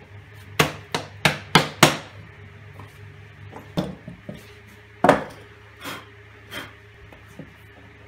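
Sharp knocks of a wooden podium top being handled and set back onto its legs: five quick knocks in the first two seconds, then a few spaced knocks, the loudest about five seconds in.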